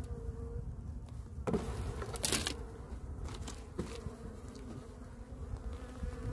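Honeybees buzzing steadily over an open hive, with a metal hive tool scraping and knocking on the wooden frame top bars a few times, the loudest scrape about two seconds in.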